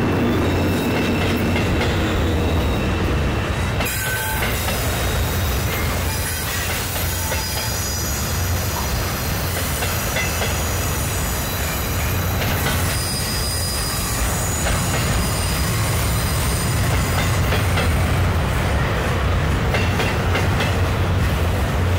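Double-stack container freight train rolling past across a steel girder bridge: a steady low rumble of wheels on rail, with thin high-pitched wheel squeals that come and go.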